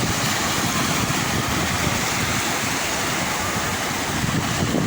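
Sea waves washing steadily, a continuous rushing noise with no breaks.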